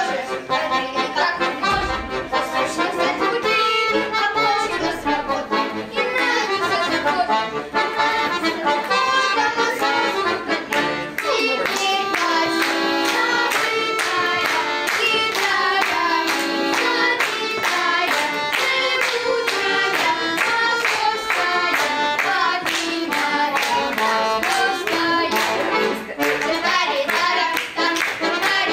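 Accordion duet playing a lively Russian folk quadrille, a fast melody over steady chords.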